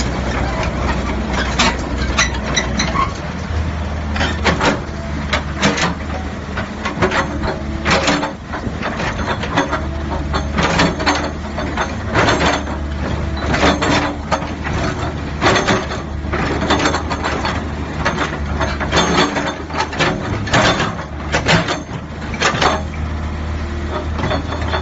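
Cat E120B excavator's diesel engine running steadily, with irregular sharp metallic clanks and knocks, about one or two a second.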